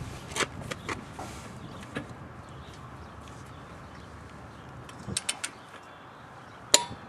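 Half-inch click-type torque wrench tightening a car's lug nut: scattered light clicks and knocks from the wrench and socket, then near the end one sharp, loud click as the wrench breaks over at its 76 lb-ft setting, the sign that the nut has reached that torque.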